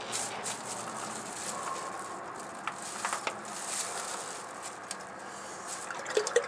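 Engine oil draining from a loosened oil filter and pattering onto a plastic sheet and cardboard, with a few small clicks from handling the filter.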